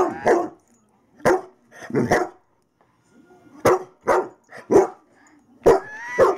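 Bernese Mountain Dog barking excitedly, about nine loud barks in short, uneven bursts.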